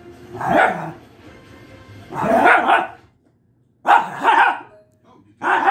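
Small terrier barking at another dog about five times at irregular intervals. The longest, more drawn-out bark comes about two seconds in, and two barks come close together about four seconds in.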